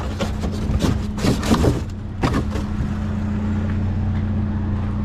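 Vehicle engine running at a steady idle with a low even hum. Several clicks and knocks sound over the first two and a half seconds.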